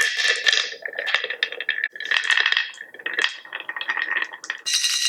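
Marbles rolling and clattering down a wave-slope marble run track: a dense, continuous rattle of quick clicks with a faint ringing, easing off briefly several times.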